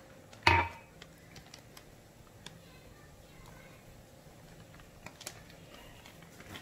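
A sharp knock about half a second in, then scattered light clicks and taps of kitchen things being handled and set down on the counter while flour is added to a plastic mixing bowl.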